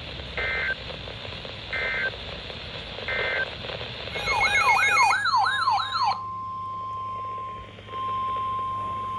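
Weather radio alert sequence: three short digital data chirps about a second and a half apart, then a fast electronic warbling siren for about two seconds, then the steady single-pitch NOAA Weather Radio warning alarm tone near 1 kHz. The tone signals that a new warning is about to be broadcast.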